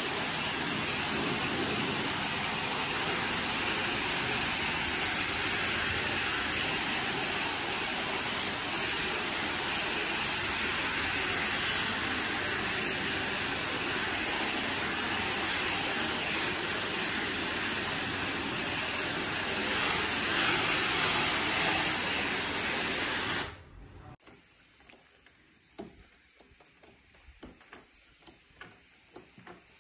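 Pressure washer wand with a fan nozzle rinsing wet limestone paving: a steady hiss of spray over the stone. It cuts off suddenly a little over 23 seconds in, leaving only faint scattered ticks.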